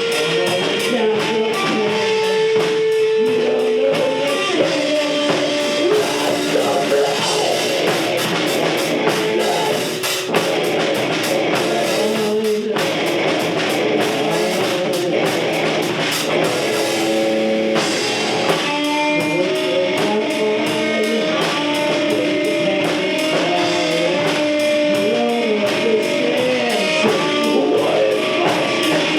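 Rock music: guitars and a drum kit playing steadily.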